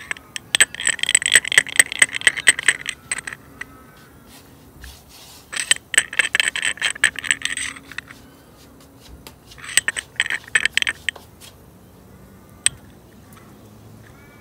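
Carbide burr teeth rasping and clicking against a second burr in a glass jar of caustic soda solution, in three bouts of rapid scraping, the last one shorter, with a single sharp tick after them.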